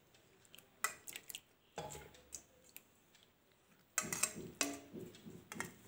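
Soaked bamboo shoot pieces scooped by hand and tipped from a pot into a metal pressure cooker: a few light clinks, then from about four seconds in a run of clattering knocks as the pieces drop in and the pot meets the cooker.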